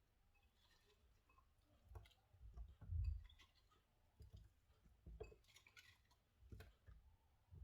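Near silence broken by faint scattered clicks and a few soft low knocks, the loudest about three seconds in.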